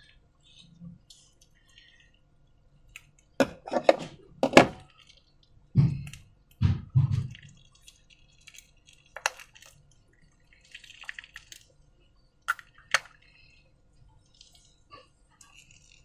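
Slime being handled in transparent balloons: a run of sharp, wet, sticky clicks and smacks, then a few dull low squelching thuds, with scattered single clicks after.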